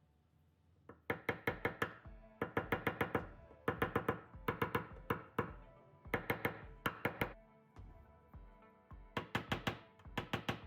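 Hammer tapping on a steel body panel in quick runs of four to six ringing blows with short pauses between runs, over background music.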